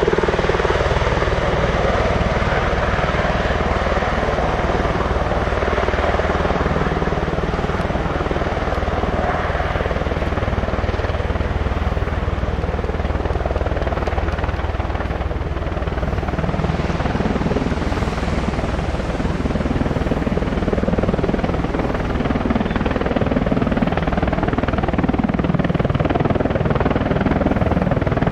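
V-22 Osprey tiltrotor in helicopter mode on its landing approach: its proprotors and turboshaft engines run with a loud, steady rotor noise, and a deeper rumble builds near the end as it comes closer.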